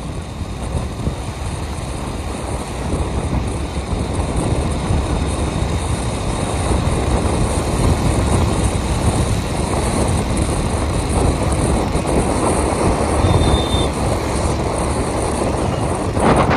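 Steady road and traffic noise of travelling along a highway, swelling a little after the first few seconds, with a brief high-pitched beep about thirteen seconds in and a short louder burst near the end.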